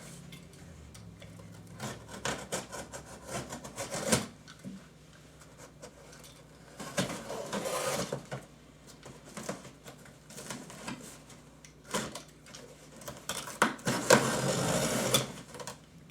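A cardboard shipping box being opened and its packaging handled: scraping, rubbing and clicking, louder for a stretch about seven seconds in and again near the end.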